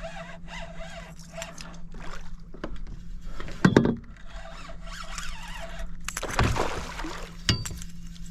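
Water splashing and sloshing around a fishing kayak while a hooked bull redfish is fought, with two sharp knocks on the boat, one a little before halfway and one near the end.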